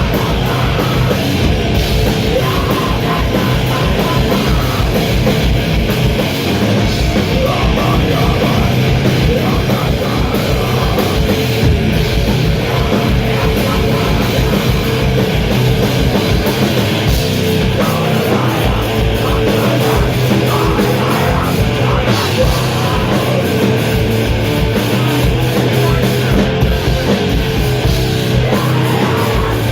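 Sludge metal band playing live at full volume: heavily distorted guitars and bass over drums, with rapid, regular kick drum beats driving underneath.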